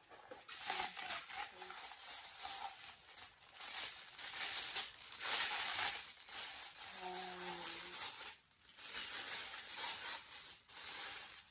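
Clear plastic packaging bag crinkling and rustling as it is handled and opened, with short pauses.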